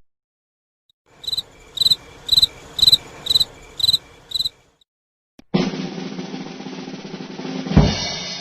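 Cricket chirping sound effect: seven short, high chirps evenly spaced about half a second apart. After a brief silence comes a snare drum roll, ending in a louder hit near the end that rings away.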